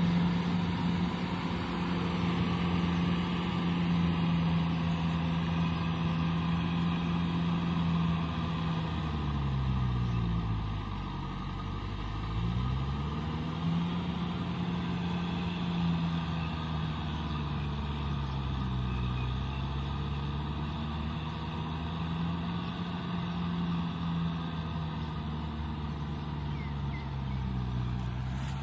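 Kubota tractor's diesel engine running steadily while it pulls a rotavator through a flooded paddy. Its note sags in pitch and recovers about ten seconds in, then dips briefly twice more.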